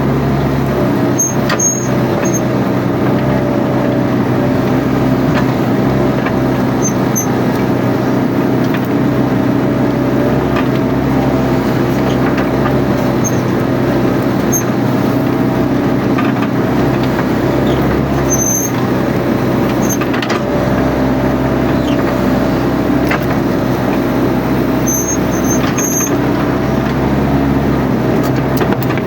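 Mini excavator's diesel engine running at a steady speed. Faint short high squeaks come a few times over it.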